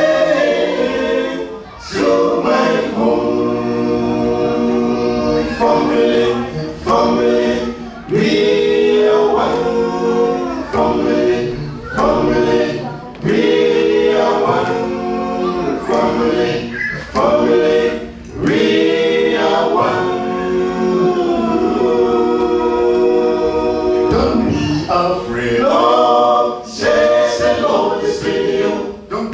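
A small mixed a cappella group, men and a woman, singing a gospel song in close harmony into microphones, phrase after phrase with short breaks between.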